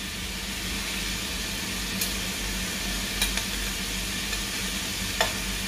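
Ground pork with garlic and onion sizzling steadily in a hot wok as it is sautéed, over a steady low hum, with a few light clicks.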